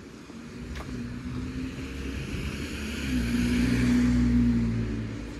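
A motor vehicle passing close by on the road: engine hum and tyre hiss swell to a peak about four seconds in, then fade.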